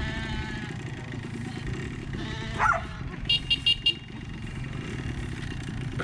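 An engine running steadily at low revs underneath. About halfway through, a dog barks four quick times in a row, just after one call that rises and falls.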